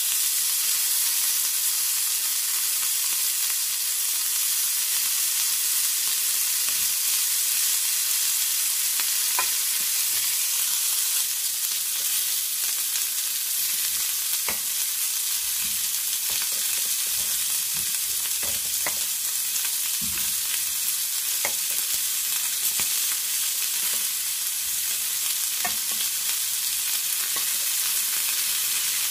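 Chicken drumsticks sizzling on a ridged cast-iron grill pan, freshly brushed with oil: a steady hiss with scattered small pops and crackles.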